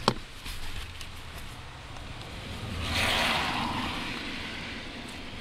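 Things being handled and shifted around inside a truck cab: a click at the start, then a rustling swell about three seconds in, over a low steady rumble.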